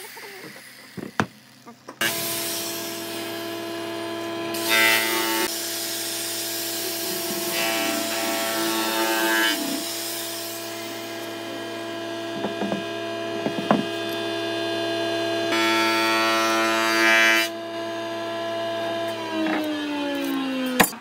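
An electric power-tool motor starts about two seconds in and runs at a steady pitch, with several stretches of louder, harsher noise as it works the wood, then winds down with a falling pitch near the end.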